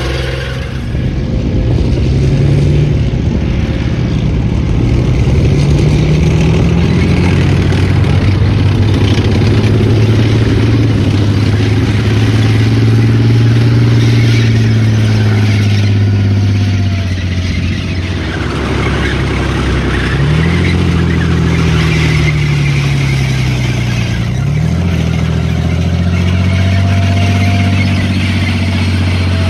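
Challenger main battle tank's V12 diesel engine working hard as the tank drives on a dirt arena. The engine note rises and falls several times as it speeds up and slows, over the rattle of its tracks.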